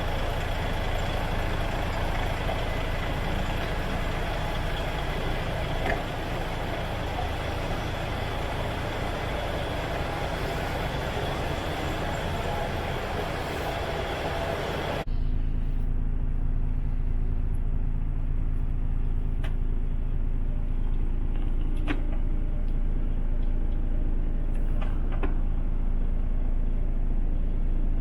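DAF XF105's Paccar MX six-cylinder diesel idling steadily. About halfway through, the sound changes abruptly to a closer, deeper, steady engine hum with a few light clicks.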